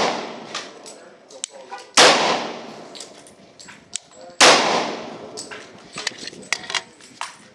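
Glock 35 pistol in .40 S&W firing two shots about two and a half seconds apart, each followed by a long ringing echo. The echo of a shot fired just before is dying away at the start, and fainter sharp clicks and pops come in between the shots.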